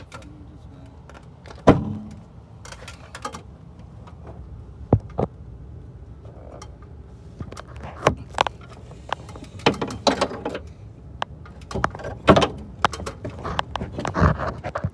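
Irregular clunks and rattles from the rear of a 2013 Ford Escape, every second or two and thicker toward the end, over a steady low hum.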